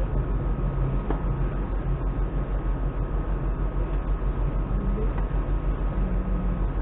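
Running noise of a moving electric commuter train heard from inside the carriage: a steady rumble of wheels and motors with a low, regular throb several times a second.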